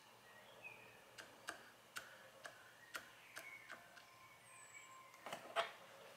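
Light metallic clicks and ticks, roughly two a second and unevenly spaced, from the twin crankshafts and spur-gear train of a hand-built model engine as its flywheels are turned by hand. A louder cluster of clicks comes a little after five seconds in.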